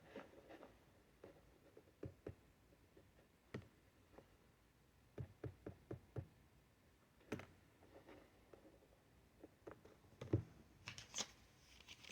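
Near silence, broken by scattered light knocks and taps, a dozen or so at uneven intervals, the loudest about ten seconds in. A crinkly rustle starts just before the end.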